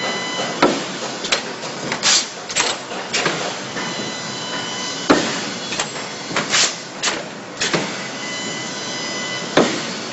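Automatic chain welding machine running, giving irregular metallic clacks and knocks over a steady hiss.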